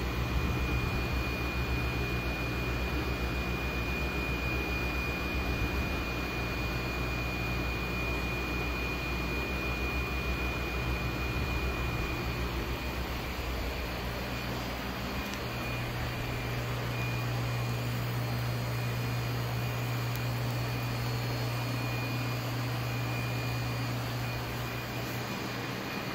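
Steady hum and hiss of aquarium pumps and pumped water running into a tank, with a faint high whine; the low hum grows stronger about halfway through.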